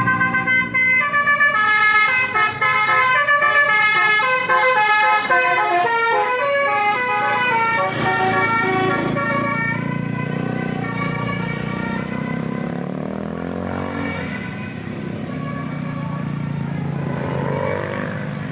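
A basuri musical horn on a vehicle plays a quick melody of stepped notes that stops about eight or nine seconds in. The vehicle's engine is heard running under the horn and on afterwards.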